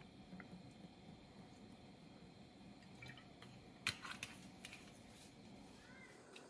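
Near silence: room tone, with a few faint clicks and taps about three to five seconds in.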